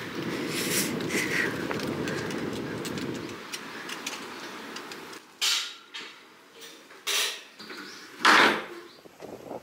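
A low rumbling noise that stops about three seconds in, then three short clunks of a public toilet stall door and its lever lock being handled, the last and loudest near the end.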